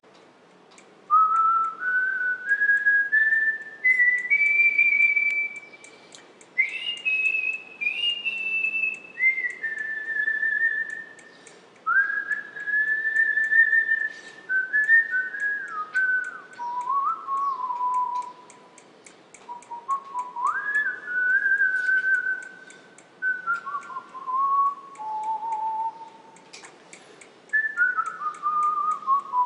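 A person whistling a tune: a single clear note stepping up and gliding down in short phrases with brief pauses between them.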